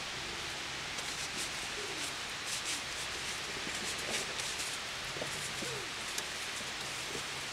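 Jeep Wrangler JK Unlimited's engine running low and steady as it crawls slowly over a rocky, muddy obstacle, under a steady outdoor hiss, with a few faint clicks.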